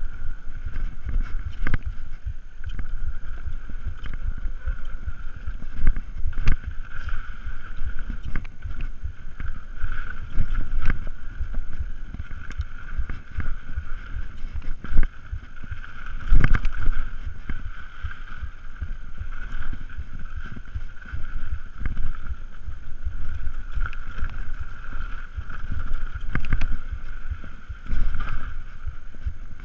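Mountain bike riding fast down a dirt trail: wind rumbling on the microphone and tyres rolling over dirt, with frequent sharp knocks and rattles from bumps, the loudest about 16 seconds in. A steady high buzz runs underneath.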